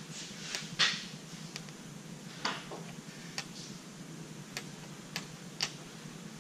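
Scattered light clicks and taps, about eight at uneven intervals, from small metal parts being handled on a bench-top oil friction and wear test machine, over a steady low hum.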